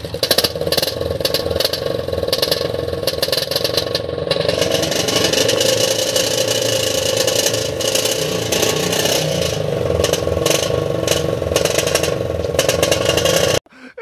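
Motorcycle engine running and revving through an exhaust silencer fitted with a drink can on a rod, a homemade hack to make it sound like a KTM Duke. The note is rough and crackly and climbs in pitch about four seconds in.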